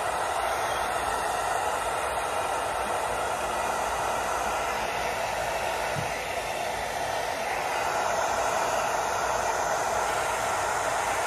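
Handheld hair dryer blowing steadily close to the microphone, with a brief dip in level about six seconds in.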